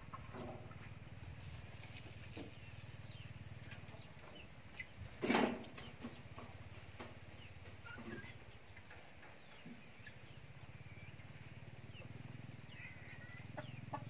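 Chickens clucking, with one short loud call about five seconds in, over faint scattered chirps and a steady low hum.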